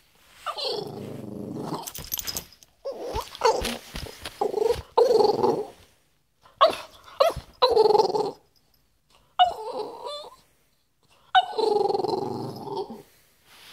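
French bulldog making a series of growly, grumbling vocalizations, about seven bouts with short pauses between, the longest ones near the start and near the end: play-soliciting noises from a dog that wants to play.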